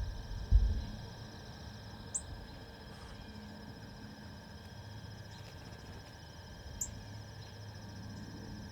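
Steady trilling of insects, a fine rapid pulsing held on one high pitch, with two brief high chirps a few seconds apart. A low thump about half a second in is the loudest sound.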